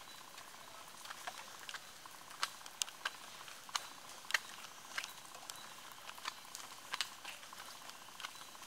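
Scattered water drops pattering irregularly on wet leaves and stones in a rain-soaked forest, over a steady soft hiss of light rain or drizzle.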